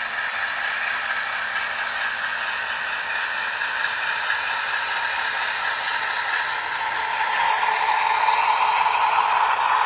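Recorded Class 60 diesel engine sound from a TTS DCC sound decoder in a model locomotive, played through its small iPhone-type speaker: a steady running diesel with little deep bass, growing louder about seven seconds in.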